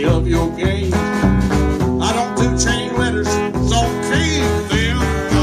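Live country band playing an instrumental passage: drums keep a steady beat under guitars, with a lead line bending notes through the middle.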